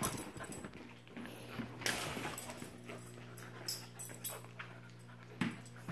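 A dog making small close-up noises as it mouths a tennis ball, among scattered light clicks and scuffles.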